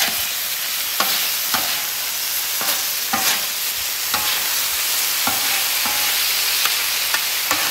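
Shrimp sizzling on a hot steel flat-top griddle, a steady hiss, while two metal spatulas toss and flip them, clicking and scraping against the griddle surface about ten times.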